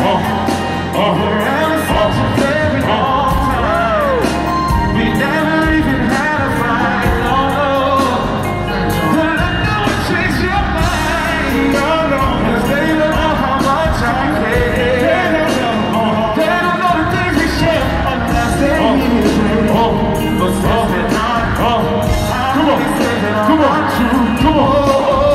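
Live R&B band and lead singer performing, heard from among the audience in a large concert hall: continuous loud music with sung vocals over the band.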